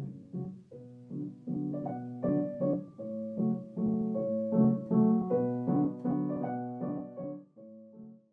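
Piano music playing a run of separate notes and chords, dying away near the end.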